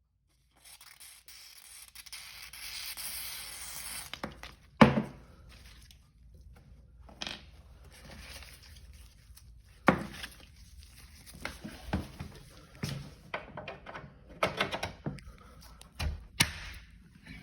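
Door hinge pin being worked out and back in: about three seconds of hissing, then a string of sharp metal knocks and clicks, the loudest about five seconds in.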